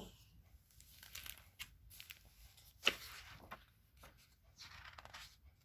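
Faint rustling and handling of a picture book's paper pages, with one sharp click about three seconds in.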